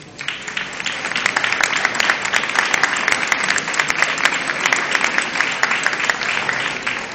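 Audience applauding: many people clapping, breaking out at once just after the start and holding steady.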